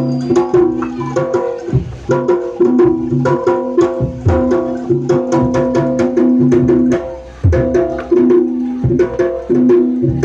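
Jaranan gamelan ensemble playing: hand drums and struck metal gong-chimes beat out a fast, dense rhythm over sustained ringing tones, with the music briefly thinning twice.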